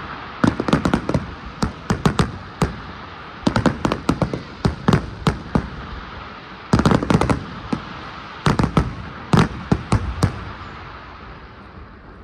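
Fireworks exploding in rapid clusters of sharp bangs, thinning out and dying away near the end.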